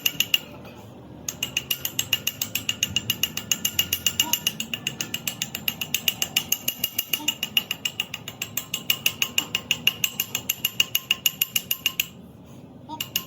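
Rapid, evenly spaced mechanical clicking, about eight clicks a second, with a short pause about a second in and another near the end.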